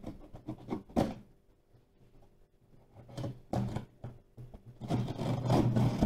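Cardboard shipping box being cut open: a small hand tool scraping and slitting the packing tape along the lid. Sharp knocks come about a second in and around three seconds, then a longer, rougher scraping stretch near the end.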